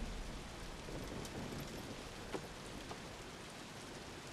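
Steady rain falling, an even hiss with a few faint drips, slowly fading.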